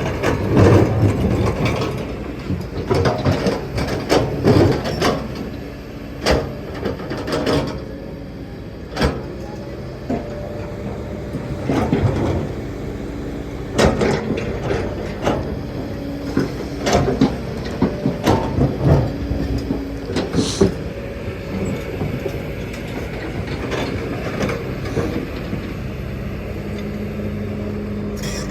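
Kobelco excavator's diesel engine running under load, with repeated irregular knocks and clanks of the bucket and rock, most frequent in the first half.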